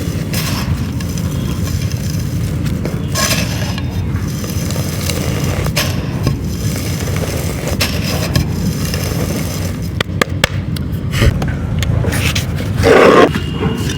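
Chunks of dried clay being crushed and crumbled by hand, in separate crunchy crumbles every second or two and a few sharp clicks, over a steady low background rumble. A louder, lower swell comes near the end.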